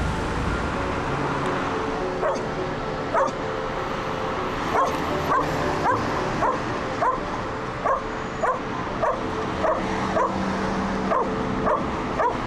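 A dog barking in a steady run of short, high yips, about two a second, starting about two seconds in, over steady background noise.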